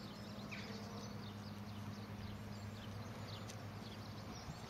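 Faint outdoor ambience: small birds chirping in short, scattered calls over a steady low hum.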